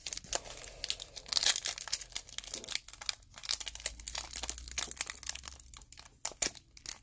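Foil wrapper of a Score football trading-card pack crinkling and tearing as it is handled and pulled open by hand, a quick irregular run of crackles.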